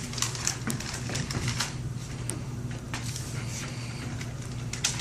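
Scattered light clicks and short rustles, irregularly spaced, over a steady low electrical hum.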